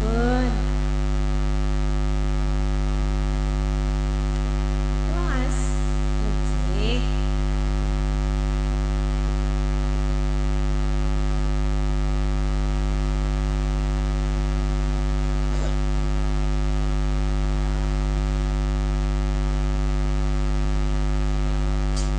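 Steady electrical mains hum, a low drone with a buzzy series of overtones, unchanging in level.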